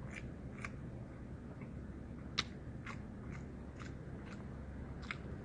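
Close-up mouth sounds of a person chewing a mouthful of meat and rice: a string of about ten short, irregular clicks from the lips and tongue, one sharper than the rest a little before halfway.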